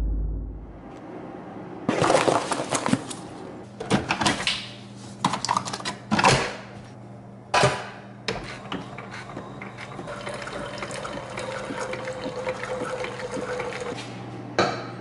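A low rumble fades out at the start. Then come several sharp clicks and knocks as a single-serve coffee maker is worked, followed by a steady stream of coffee brewing into a mug for about six seconds. One more knock comes near the end.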